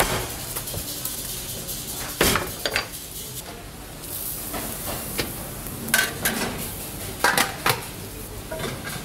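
Metal cookware clanking: aluminium stockpot lids and pans knocked and set down, several sharp clanks over a steady kitchen hiss.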